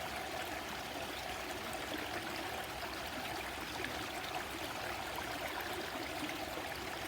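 A stream running steadily: an even, constant rush of flowing water.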